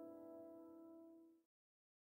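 Background music, a held chord of steady tones, fading out and then cutting to silence about one and a half seconds in.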